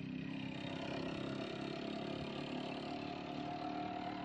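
An engine running steadily, with a thin whine that comes in about halfway through.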